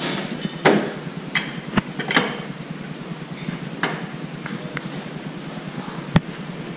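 Scattered sharp clinks and knocks of china plates and dishes being handled, about half a dozen over a few seconds, the sharpest near the end.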